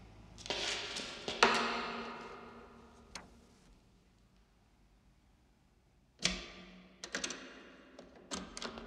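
Sharp knocks and taps, each trailing off in a long echo: several near the start, a quiet stretch, then a quick cluster of them in the last few seconds.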